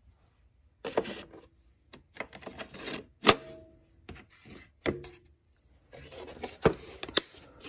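Metal pieces of a power steering pulley puller and installer kit being handled: a series of sharp clacks and knocks, some ringing briefly, with rustling in between.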